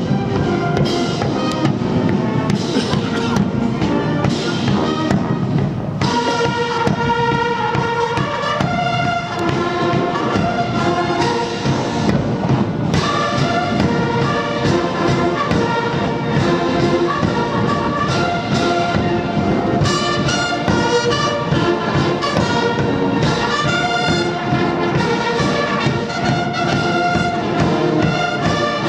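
Massed military band of brass and drums playing a march. For the first six seconds or so it is mostly drumming, then the full brass melody comes in over the drums.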